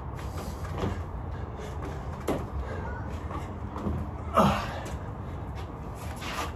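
Several dull thumps of a person's feet and body landing during drop squats, irregularly spaced, the loudest about four and a half seconds in, over a steady low hum.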